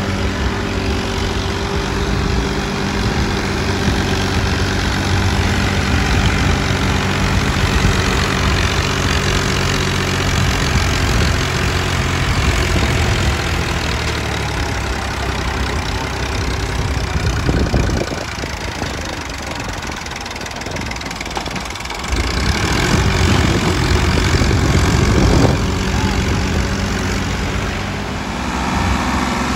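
Farm tractor's diesel engine running steadily under load while hauling a trolley piled with sugarcane. It dips in level for a few seconds past the middle, then comes back up.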